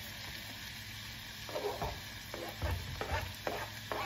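Mushrooms, green onion and garlic sizzling in a nonstick sauté pan. From about one and a half seconds in, short irregular knocks and scrapes come in as more sliced mushrooms are pushed off a board into the pan.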